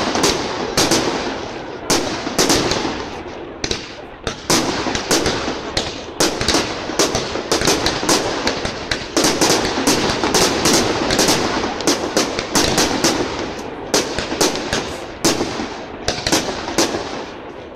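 Fireworks display: aerial shells bursting in many sharp bangs, irregular and close together, over a continuous din of noise.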